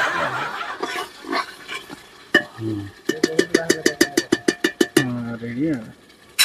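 Metal spatula stirring and scraping mutton masala in an aluminium pressure cooker: a fast run of ringing metallic scrapes, about ten a second, through the middle, over a light sizzle of the frying masala.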